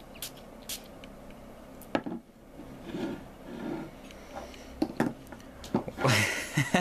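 A glass perfume bottle and its heavy cap being handled on a tabletop: scattered light clicks and knocks, the sharpest about two seconds in, with a breathy rush near the end.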